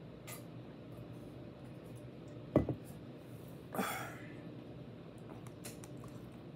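A metal drinking tumbler set down on a table with one sharp knock about two and a half seconds in, followed about a second later by a short breathy exhale after drinking. A few faint mouth and handling clicks follow as food is picked up.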